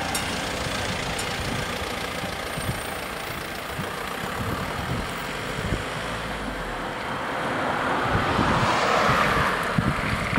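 Cars driving over a railway level crossing as the barriers go up: engine and tyre noise that grows louder as a car passes close near the end.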